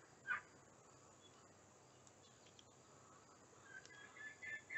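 A rooster held upside down giving soft calls: one short call just after the start, then near silence, then quiet, drawn-out grumbling calls building near the end.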